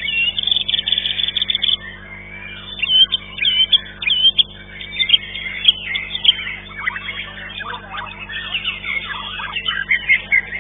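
White-rumped shamas (murai batu) singing loudly together, with quick whistled phrases, rising and falling notes and chattering calls overlapping, over a steady low hum.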